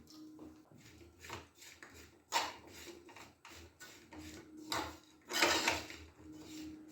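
Jaggery being tipped and scraped into a pan: a run of irregular rubbing and scraping strokes, with a longer, louder scrape about five and a half seconds in.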